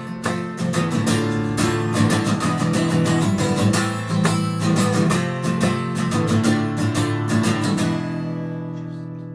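Acoustic guitar strummed in a steady rhythm through changing chords. About eight seconds in the strumming stops and the last chord rings out and fades.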